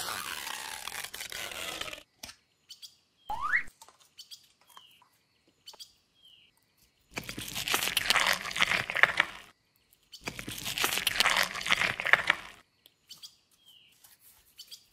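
Yellow slime squeezed and stretched by hand, with two long bouts of wet, crackling squelches full of tiny pops, after a shorter squelch as it is pulled from its jar at the start.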